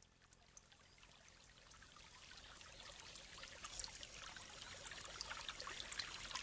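Trickling, babbling water with many small drips and splashes, fading in gradually from silence and growing louder.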